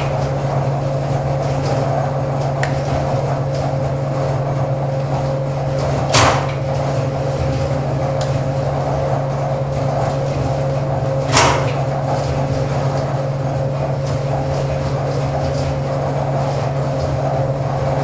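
Steady low mechanical hum of the seismic shake-table rig, broken twice by a short, sharp clunk about six and eleven seconds in: the automatic transfer switch's contactor switching over under test.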